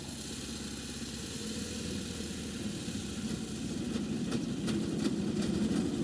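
Small 7¼ in gauge locomotive engine running steadily and slowly growing louder, with a few light clicks in the second half.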